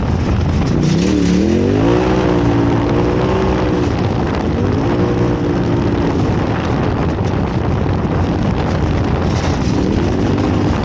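Off-road race vehicle's engine revving and pulling under heavy rushing noise. Its pitch climbs about a second in and holds, climbs again around the fourth second, then rises once more near the end.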